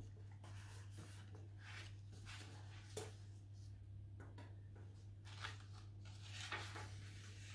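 Faint rustling and soft clicks of a book being handled and its pages leafed through, with a sharper tap about three seconds in, over a low steady hum.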